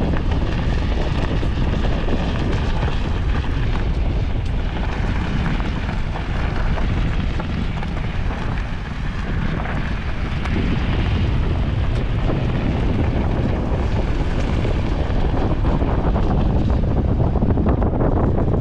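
Steady, loud rumbling wind noise buffeting the microphone.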